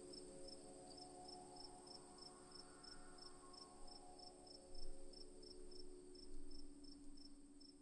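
Faint night ambience: a cricket chirping evenly, about four chirps a second, over a steady high insect trill, with soft sustained low tones underneath. There are two faint low bumps in the second half.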